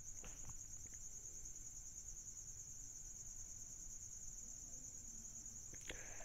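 Faint, steady high-pitched insect trill, cricket-like, with a few soft clicks near the start and again just before the end.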